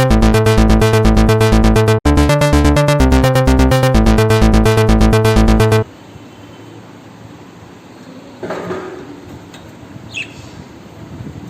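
Electronic music with a steady beat that cuts off suddenly about six seconds in. Then a low background hiss, with a short rustle-like sound around two-thirds of the way through and a brief high chirp near the end.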